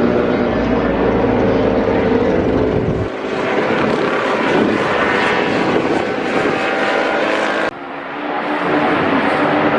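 Motorcycle engines running at speed, with abrupt changes about three seconds in and again late on, where one recording cuts to the next. In the last part, the engine pitch rises slightly.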